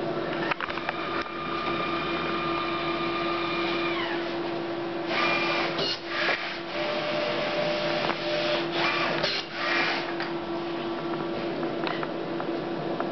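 Memjet SpeedStar3000 inkjet label printer running a short roll-to-cut label job. A steady motor whine falls away after a few seconds, then louder whirring bursts of the paper feed come about five seconds in and again around eight to ten seconds in.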